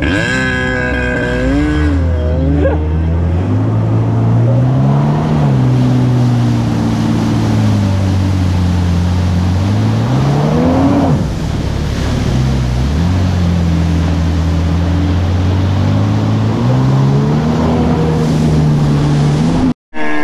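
Stand-up jet ski's two-stroke engine revving up and down as the rider pulls away from a deep-water start and rides off. The pitch rises and falls several times, sags briefly past the middle, climbs again, and then cuts off abruptly near the end.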